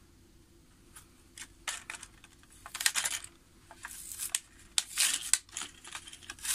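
Plastic blister pack on a cardboard backing card being torn and pried open by hand: a string of short crinkling, tearing rustles and clicks.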